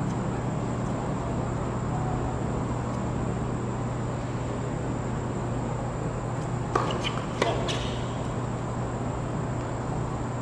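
Tennis ball struck twice, two sharp knocks about half a second apart near the end, over a steady low hum.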